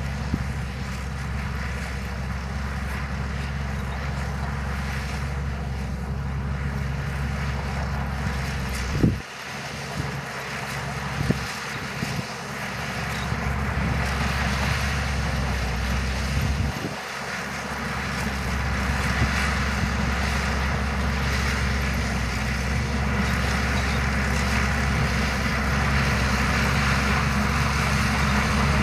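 Shantui DH17C2 bulldozer's diesel engine running steadily under load as it pushes sand, with the rattle of its tracks. A few sharp clanks break in, twice followed by a short dip in the engine hum.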